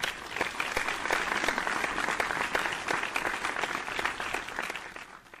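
A crowd applauding, dense clapping that starts suddenly and fades out near the end.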